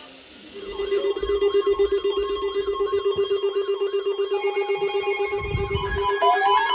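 Several NOAA weather radios sounding their alert alarms together: a low, fast-warbling tone starts about half a second in with a repeating chirp above it, and more radios join with steady and pulsed beeps about four and six seconds in. A short low thump comes a little past five seconds.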